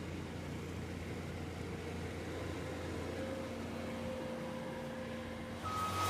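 A vehicle engine running steadily with a low hum. Near the end a reversing beeper starts up, beeping on and off as a machine backs up.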